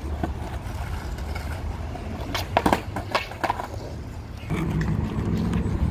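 Skateboard wheels rolling on concrete, then a quick cluster of sharp clacks about two and a half to three and a half seconds in as the board is popped, flips and slaps the ground on a backside 180 flip attempt that the skater does not stay on. A louder rolling rumble follows near the end.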